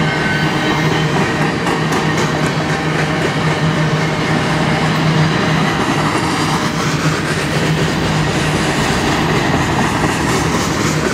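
Empty coal cars of a freight train rolling past: a steady rumble of steel wheels on rail with a low hum, and clusters of clicks as the wheels cross rail joints, once about two seconds in and again near the end.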